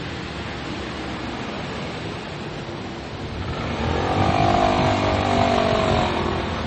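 Road traffic at a busy crossing: a steady hum of passing vehicles. About halfway through, a louder motor whine swells, rising and then falling in pitch as a vehicle goes by.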